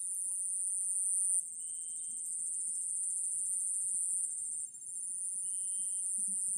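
Steady high-pitched insect drone, dipping and shifting slightly in pitch twice.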